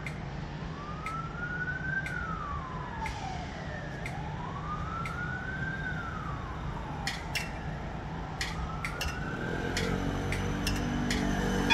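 An emergency-vehicle siren wailing slowly up and down, about three rises and falls. Sharp clicks sound now and then, more often in the second half, and near the end the low rumble of an approaching tram grows louder.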